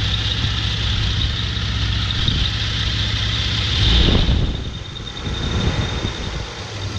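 Toyota 3-litre V6 idling quietly, blipped once by hand at the throttle about four seconds into the clip. The engine-driven cooling fan rushes up with the revs, then both settle back to idle.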